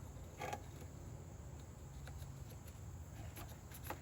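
Faint handling noises as the plastic throttle grip is worked onto the string trimmer's handle: a light knock about half a second in and a few soft ticks near the end, over a steady low hum.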